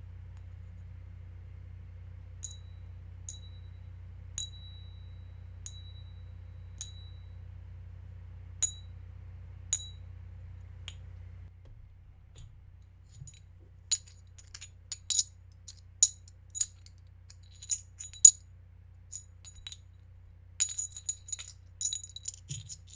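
Silver coins clinking against each other, each strike ringing briefly with a bright, high tone. The first half holds single clinks about a second apart; past the middle they come faster and overlap, with quick clusters near the end.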